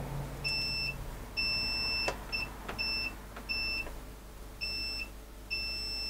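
Multimeter continuity buzzer beeping on and off about seven times in short and longer stretches, the last lasting over a second, with a few light clicks between. The beeps cut in and out because the broken neutral core in the power tool's mains lead only makes contact intermittently as the cable is worked.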